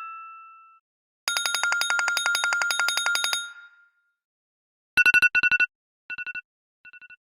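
iPhone alert tones played one after another. A fast ringing trill lasts about two seconds, then a quick beeping pattern repeats more and more faintly, like an echo, near the end.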